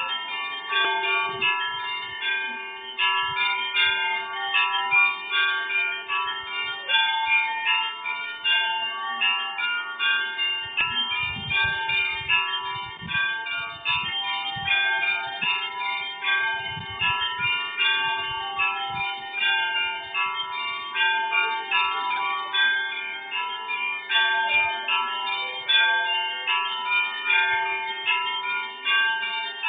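Russian Orthodox church bells rung in a rapid, continuous peal, many bells of different pitches struck in quick succession over the hum of a larger bell.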